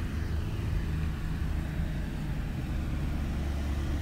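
A vehicle engine idling steadily, heard as an even low hum with no change in speed.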